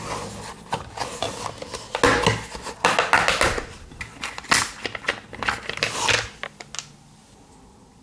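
AA rechargeable batteries clattering against each other and the sides of a clear plastic storage box as hands rummage through it: a jumble of quick clicks and knocks that stops about a second before the end.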